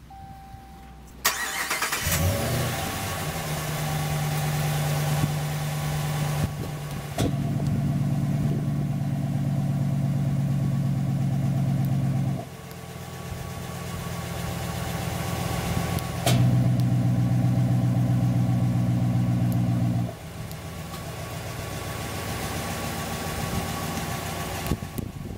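2013 Ram 1500's 5.7-litre HEMI V8 remote-started about a second in, cranking, catching, then idling. Twice a wireless-remote exhaust bypass cutout valve opens with a click, switching the stock exhaust sound to a much louder open-exhaust idle with a heavy low note for about five seconds, then closes again; the engine stops at the very end.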